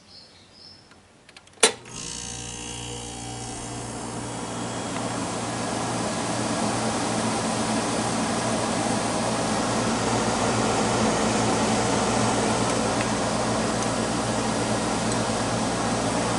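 Freshly restored 1971 Montgomery Ward Signature Series window air conditioner starting up: a sharp click as it switches on about a second and a half in, then a low hum and the fan's air rush building over several seconds and settling into a steady run.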